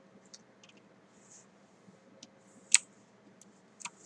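Scattered clicks of a computer mouse and keyboard: a few light clicks, with one sharper click a little before three seconds in and another near the end, over a faint steady hum.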